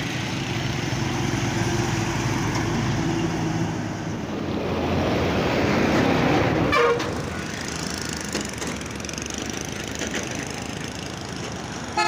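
Roadside traffic: heavy trucks passing close by, their engines rumbling and loudest about halfway through, with a short horn toot about seven seconds in. The traffic noise is quieter after that.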